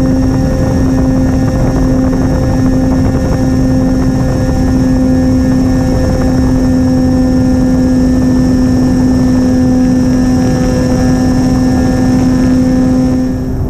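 Twin 2212 brushless electric motors spinning 8x6 propellers on a Sonicmodell Binary model plane at steady cruise: an even propeller hum over rushing wind noise on the onboard microphone. The hum changes pitch just before the end, with a throttle change.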